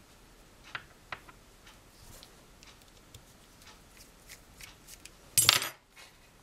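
Fingers handling a small screw and nut against the dryer's metal heater bracket: faint scattered clicks, then a short, loud rustling clatter about five and a half seconds in.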